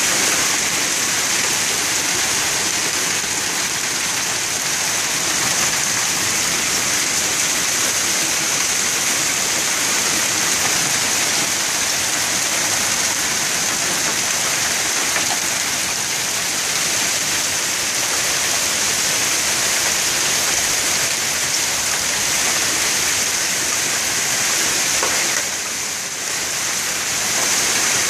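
Hail and heavy rain pouring down in a steady, dense hiss on pavement, lawns and parked cars, easing briefly near the end.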